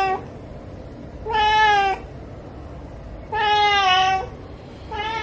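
Domestic cat meowing repeatedly, begging for food: two full drawn-out meows, each slightly falling in pitch and lasting under a second, between the tail of one meow at the start and the beginning of another near the end.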